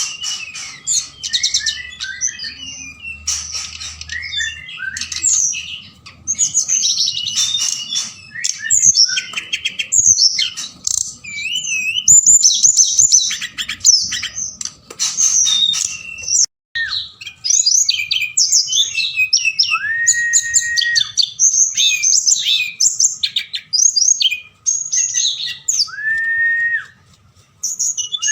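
Tledekan gunung songbird singing a fast, varied, chirping song of quick high notes and trills in short phrases, with an occasional clear held whistle about two-thirds of the way through and again near the end.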